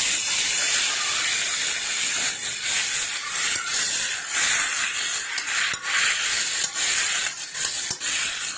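Water poured into a hot, oiled iron wok sizzles and hisses loudly as it hits the hot oil and turns to steam. A metal spatula stirring in the wok adds brief scrapes and clicks now and then.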